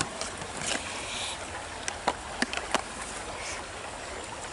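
Hard plastic parts of a Lifesaver water-filter bottle clicking and knocking as it is handled and its ends twisted, a handful of short sharp clicks, most of them in the first three seconds. Behind them, a steady background hiss.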